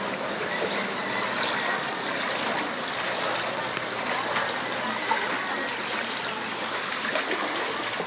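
Floodwater flowing steadily and churning around wading legs, a continuous watery noise.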